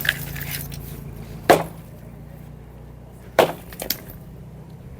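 Heavy blows striking and breaking an encroaching roadside structure during demolition: four separate impacts, the third and fourth close together.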